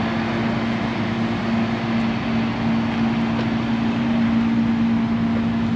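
A dump truck running with a steady, constant hum while its bed is tipped up, feeding mulch out through its tailgate.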